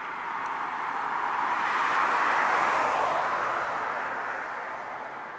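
A car driving past: its tyre noise swells to a peak about halfway through, then fades away.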